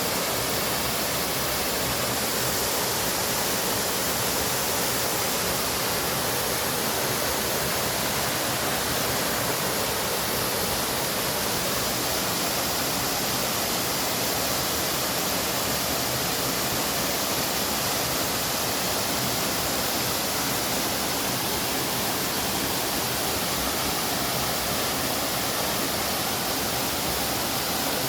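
Waterfall: falling water rushing steadily, an even hiss with no change.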